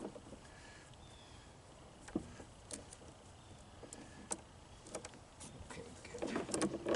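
Scattered light clicks and ticks of a saw chain and bar being handled while the chain is seated on the chainsaw bar, with a busier patch of clatter near the end.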